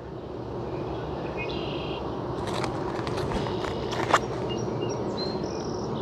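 Steady hum of honey bees at an open wooden hive, with a few short high bird chirps and a couple of sharp clicks, the louder one about four seconds in, from the metal hive tool on the wooden frames.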